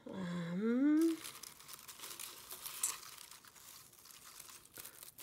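A short rising hum from a woman's voice, then crinkling and rustling of crinkle-cut paper shred packing filler as hands dig through it and lift out a small drawstring pouch.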